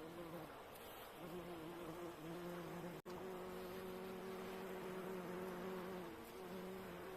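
Bumblebee buzzing in flight, a steady low hum that fades and returns a few times, over a faint wash of sea waves.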